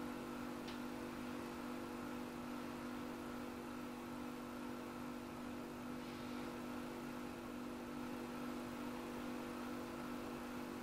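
Steady low hum made of several held tones over a soft hiss, with one faint tick about a second in.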